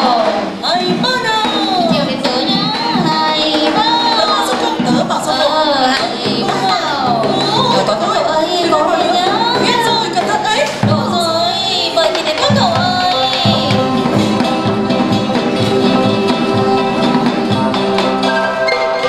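Live traditional Vietnamese music for a water puppet show: a singer's wavering, sliding melody over plucked and held instrumental notes. About two-thirds of the way in, the vocal line gives way to steady instrumental tones and a run of drum strokes.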